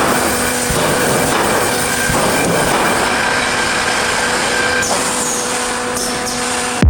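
Automatic wire-mesh fence welding production line running: a steady mechanical noise with a few steady whining tones, cutting off suddenly at the very end.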